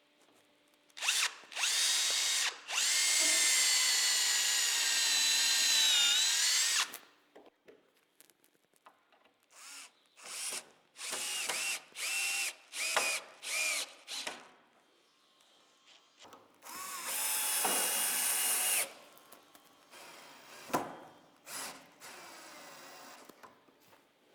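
Power drills pre-drilling and driving screws into wooden cladding boards. One long run of about six seconds, its pitch sagging near the end, is followed by five or six short bursts and then another run of about two seconds.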